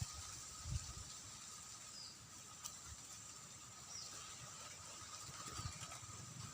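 Faint outdoor ambience: a steady high insect drone, with a short high falling chirp about every two seconds and a couple of low bumps.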